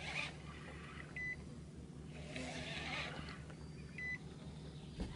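Quiet ambience aboard a fishing boat: a faint low steady hum with two soft rushing swells, and two short high beeps about three seconds apart.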